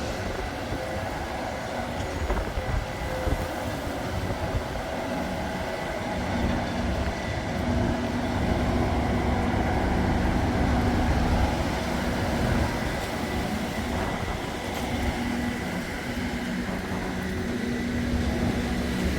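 Strong wind buffeting the microphone: a steady low rumble, with a faint mechanical hum under it that comes and goes.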